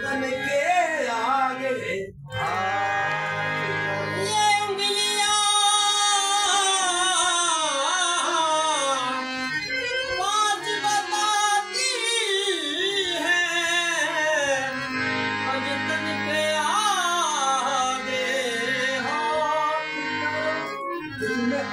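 Man singing a Saraiki qasida in qawwali style, drawing out long wavering, ornamented notes over a steadily held harmonium accompaniment. The music drops out briefly about two seconds in.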